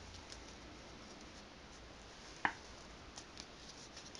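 Quiet room tone with a single short, sharp click about two and a half seconds in, followed by a couple of faint ticks.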